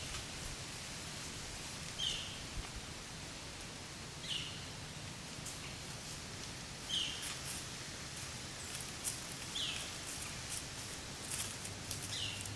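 A bird repeats a short, high, falling call about every two to three seconds, five times, over faint rustling of leaves in the woods.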